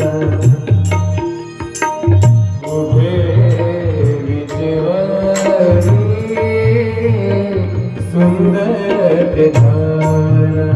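Marathi devotional song (bhajan) with a steady tabla beat and a singing voice; the voice carries a wavering melody through the middle.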